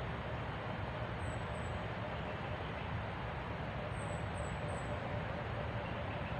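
Steady forest background noise with a low rumble throughout, and faint, very high, short falling chirps: two about a second in and three more close together near four seconds.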